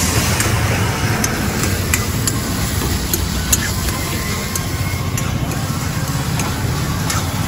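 A steel spatula clinks and scrapes against a steel wok as pasta is stir-fried, in sharp irregular taps. Under it runs a steady low rumble of road traffic.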